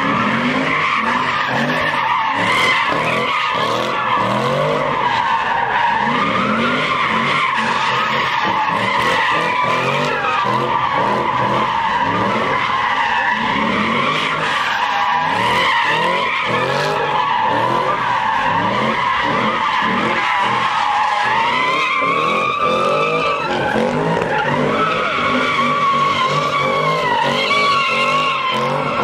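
Chevrolet SS sedan's V8 revving up and down over and over as it spins donuts, its rear tyres squealing without a break. The squeal's pitch wavers and rises briefly about three quarters of the way through.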